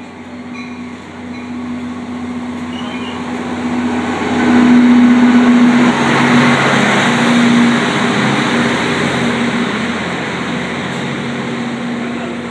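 NJ Transit diesel locomotive passing close by, pulling double-deck coaches: a steady engine drone and rail rumble that swell to their loudest about four to eight seconds in as the locomotive goes past, then ease as the coaches roll by.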